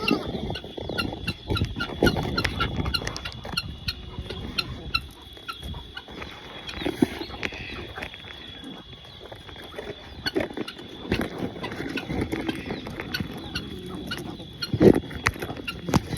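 Farm animals and poultry calling, with scattered short clicks and knocks over a steady high-pitched tone.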